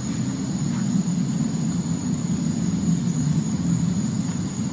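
Steady, loud, low droning rumble with no breaks, the kind of unexplained drone people record as a strange sound in the sky; a faint high steady whine runs above it.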